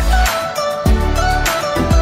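Background music: sustained notes over a deep bass.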